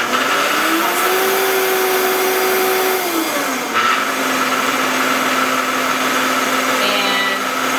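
Vitamix 780 blender motor running with an empty jar while its speed is changed mid-blend: it speeds up over the first second, holds, then slows to a lower steady speed about three and a half seconds in.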